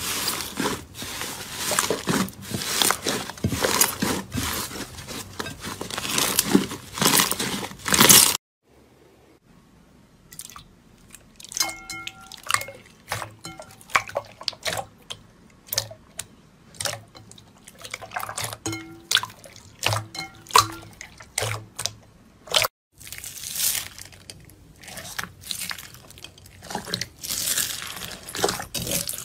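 Slime being squeezed and pressed by hand: dense crackling and popping clicks, thinning out in the middle section to sparser squelches with a few brief squeaks, with two abrupt cuts to silence between clips.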